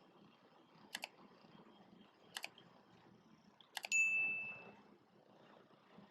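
Three sharp double clicks about a second and a half apart, the last followed at once by a bright metallic ding that rings and fades out within about a second.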